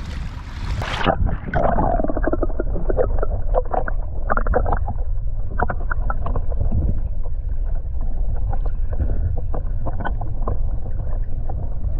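Water heard through a camera microphone that goes underwater about a second in: a bright sloshing at the surface, then muffled low rumbling and sloshing with many small bubbly clicks.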